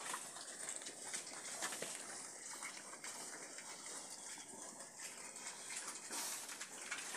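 A group of young pigs eating fresh-cut grass: a steady jumble of chewing, crunching and snuffling, full of small crackles.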